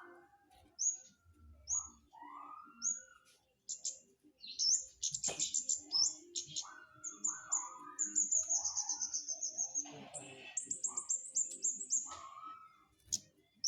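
Flowerpecker (cabe-cabean) singing: runs of very high, rapid twittering trills and short sharp chips, mixed with lower whistled notes.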